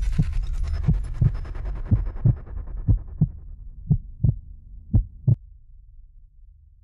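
Heartbeat sound effect: six double thumps about a second apart, over a low rumble that fades away toward the end.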